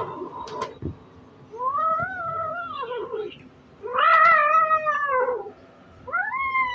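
Kitten meowing in long, drawn-out calls, each rising and then falling in pitch. Two full calls come in the middle, the second the loudest. The tail of an earlier call is heard at the start, and another call begins near the end.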